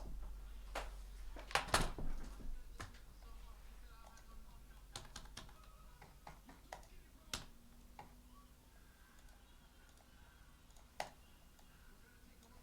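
Scattered keystrokes and clicks on a computer keyboard, a few at a time and growing sparser, with one louder click near the end, over a low steady hum.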